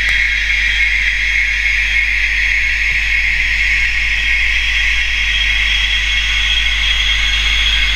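Hobbytrain N-scale BR 110 model electric locomotive running slowly on the track, giving a steady whirring hiss over a low hum. The owner thinks its motor could do with a little oil.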